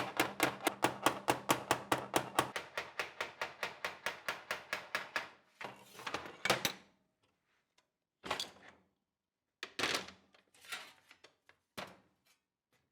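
Rapid, evenly spaced hammer blows on sheet steel, about five a second, typical of flanging a panel with hammer and dolly. They stop about five seconds in, and a few separate knocks and clatters follow.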